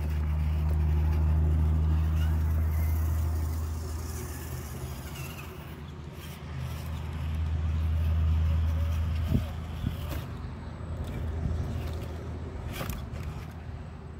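RC4WD TF2 scale crawler working across a pile of loose wooden boards. A low rumble swells and fades twice, then a few sharp knocks of the tires and chassis on the wood come in the second half.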